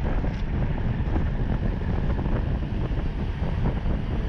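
Wind buffeting a bike-mounted camera's microphone as a road bike rides at about 39 km/h, a steady low rushing rumble.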